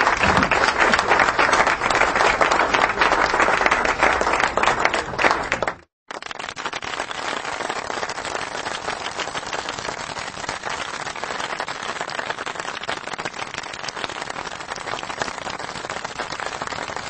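Dense crackling patter like applause, loud for about the first six seconds, then after a brief break a quieter, even crackle.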